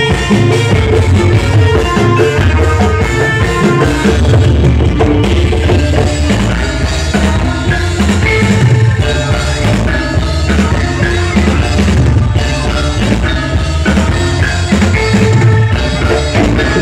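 Loud music with a steady drum beat and heavy bass, played through a large live-event sound system during a sound check.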